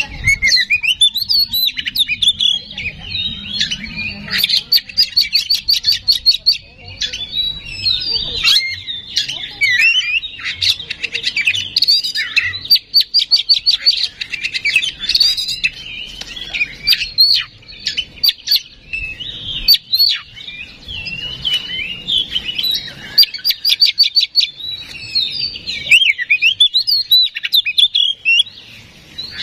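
Oriental magpie-robin singing a long, nearly unbroken song of varied whistles, fast trills and rapid chattering rattles, with only a few brief pauses.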